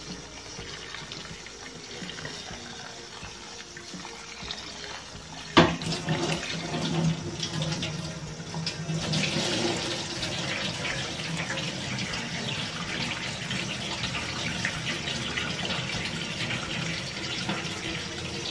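Water pouring and splashing into a sink as hot cooking water is drained from a pan of instant noodles and the noodles are rinsed with cold water. A sharp clank comes about five and a half seconds in, and the splashing is louder and steadier after it.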